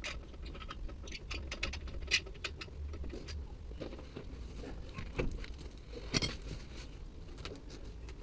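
Scattered light clicks, taps and rustles of hand work at a van's front wheel as the wheel comes off, over a faint low rumble.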